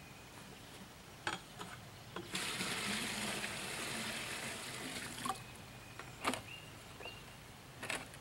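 Water poured from one plastic bucket into another, filling it to the level of a concrete-mixing paddle: a steady pour starting a little over two seconds in and lasting about three seconds. A few short knocks from the buckets being handled come before and after the pour.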